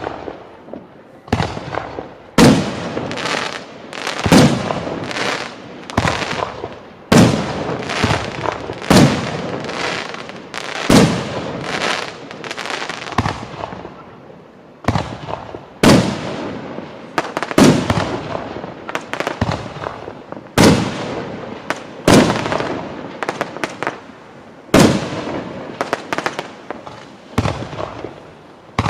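Firework display shells bursting in a steady run of loud bangs, roughly one every second or two, each followed by a fading echo.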